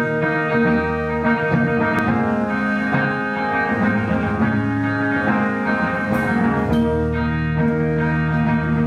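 A live band playing amplified music: electric guitars sustaining chords that change every second or so over bass, with a little drumming.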